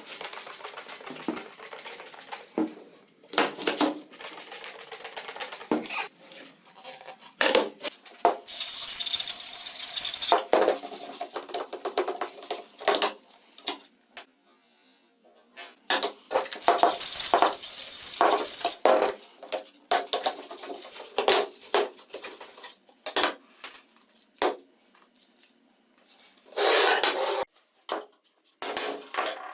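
Metal parts and tools being handled: irregular clinks, clanks and knocks with short scraping stretches, stopping and starting.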